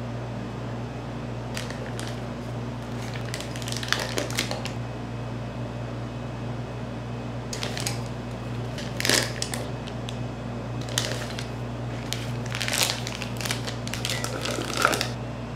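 Intermittent short scraping and clicking sounds of kitchen utensils being handled while making macarons, over a steady low hum.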